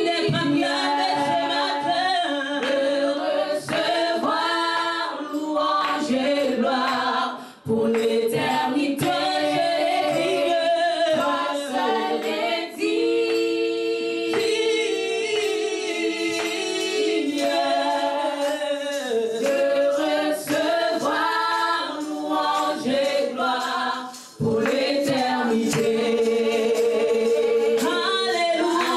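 A group of voices singing a slow worship song a cappella, holding long notes. There are two brief breaks for breath, about seven seconds in and near the end.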